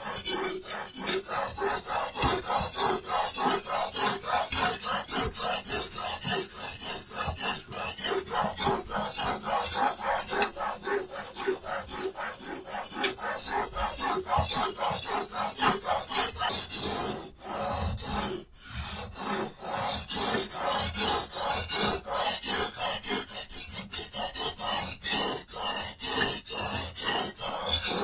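Steel knife blade scraping back and forth on a diamond sharpening plate in a Hapstone T1 guided-angle sharpener: a dry rasp on every stroke, in quick, even strokes, with a short pause a little past two-thirds of the way through.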